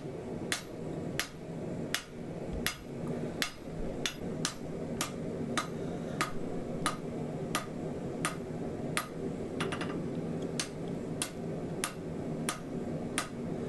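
Hand hammer striking a red-hot bar of leaf-spring steel on an anvil in steady blows, about one and a half a second, forging the taper of a sword blade. A steady low hum sits beneath the blows.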